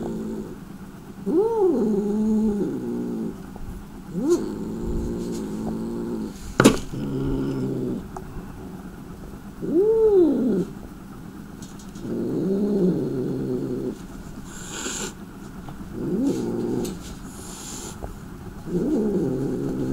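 Angry cat yowling: about seven long, drawn-out moans a couple of seconds apart, each rising then falling in pitch, the low warning cry of a hostile, cornered cat. A single sharp click about a third of the way in.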